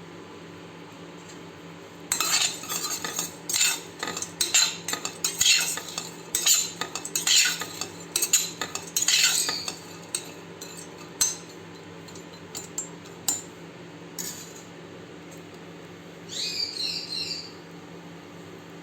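Long pepper (pippali) pieces stirred in a pan as they dry-roast: a run of scraping clatters for about eight seconds, then a few scattered clinks, over a steady low hum. A short burst of high chirps near the end.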